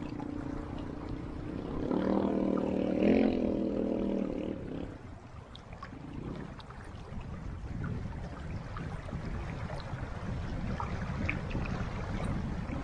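Shallow river rushing over rocks, with wind on the microphone. For the first five seconds a distant dirt bike engine holds a steady drone. It is louder from about two seconds in, then fades out, leaving only the water.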